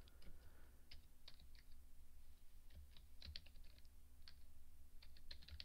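Faint typing on a computer keyboard: irregular key clicks with a couple of quick runs of keystrokes.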